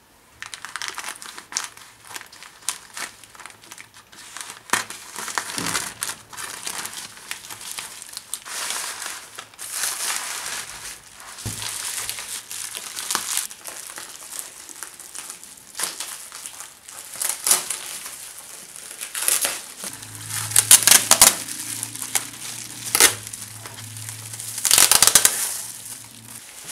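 Bubble wrap and plastic packaging crinkling and rustling under hands as a parcel is unwrapped, with many sharp crackles and louder bursts of crinkling in the last several seconds.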